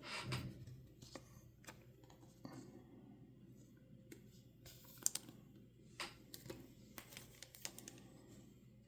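Faint, scattered small clicks and light rustles of a trading card being handled and slid into a plastic card sleeve.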